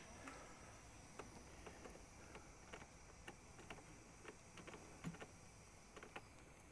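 Near silence: faint outdoor ambience with scattered small clicks.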